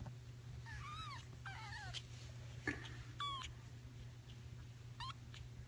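Young kittens mewing: about four short, high-pitched squeaky mews, each arching up and down in pitch, over a steady low hum.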